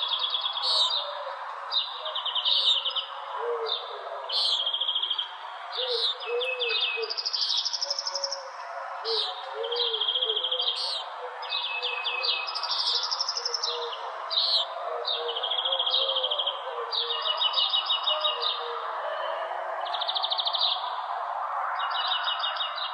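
Songbirds singing: short, high trilled phrases repeated about once a second, over a steady background noise.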